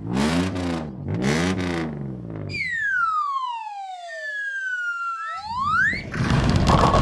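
Cartoon sound effects for a toy car's stunt jump: two engine revs that rise and fall, a long falling whistle, a quick rising whistle, then a loud rattling clatter near the end.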